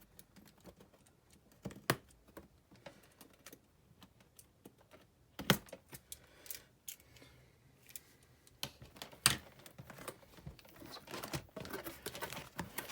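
A LEGO set's cardboard box being opened and handled: scattered clicks and taps with a few sharper knocks, and rustling near the end.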